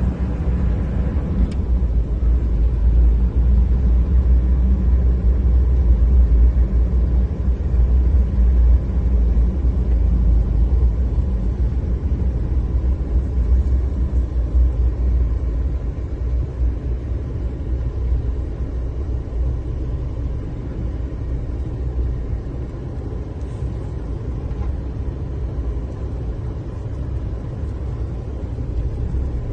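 Car driving on a rough dirt road, heard from inside the cabin: a steady low rumble of engine and tyres that eases slightly about halfway through.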